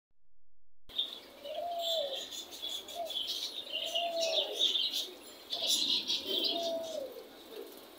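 Birds calling: a low, arched, cooing call repeated several times over high chirping and twittering.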